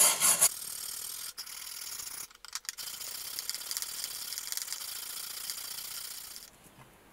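Hand steel wire brush scrubbing rust off a corroded steel trench knife and scabbard. The first half second has loud, quick back-and-forth strokes, about four a second. Lighter, quieter scratching follows, with a short break a little after two seconds, and it stops shortly before the end.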